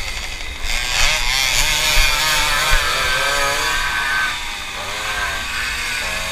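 Tomos moped's small two-stroke engine revving, its pitch rising and falling several times through the turns, over a steady rushing hiss, with a few short thumps.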